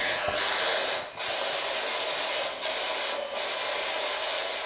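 Steady hiss of radio static from a spirit box sweeping through stations, broken by a few brief dropouts.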